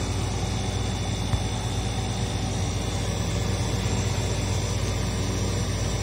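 Refrigerator compressor running with a steady low hum, just replaced and charged with gas.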